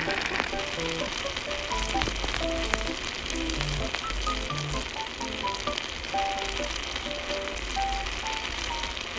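Background music of short plucked-sounding melodic notes over a steady hiss and crackle of water boiling in a miniature clay pot.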